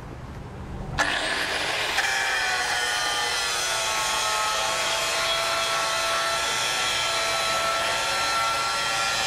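Angle grinder cutting into a metal wheel clamp: it starts suddenly about a second in and grinds steadily, a hiss with a high whine.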